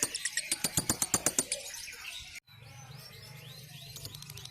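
Lovebird ngekek chatter: a long, fast run of harsh, clicky notes at about six a second, breaking off suddenly about halfway through. After the break, softer high rising chirps sound over a steady low hum.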